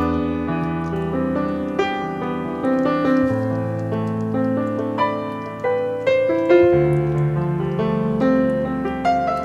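Background piano music: melodic notes over held bass notes that change every second or two.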